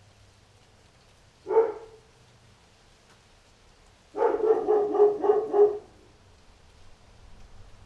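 A dog barks once, then, about four seconds in, lets out a quick run of about six barks in a row.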